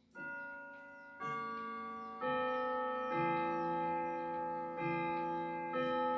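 Junghans clock's chime movement playing a melody: hammers strike tuned gong rods one note about every second, six notes in all, each ringing on under the next.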